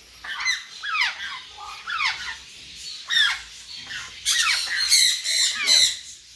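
African grey parrot chicks squawking over and over: short calls that drop steeply in pitch, several a second, with louder, harsher squawks about four to six seconds in.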